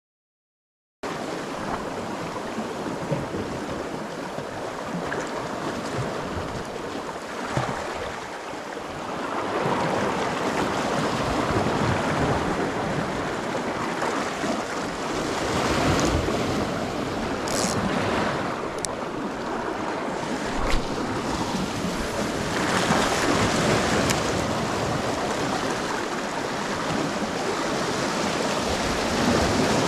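Sea waves washing and surging over shoreline rocks, swelling and easing every few seconds, with wind on the microphone. It starts about a second in. A few sharp clicks come in the middle.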